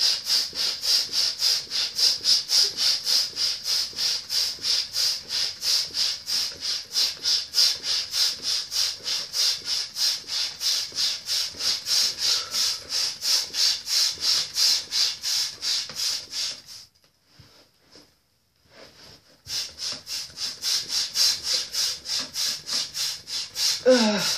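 Hand balloon pump inflating a large latex balloon: a steady run of hissing air strokes, about three or four a second, stops for about three seconds partway through, then resumes. At the very end the over-inflated balloon bursts with a loud bang.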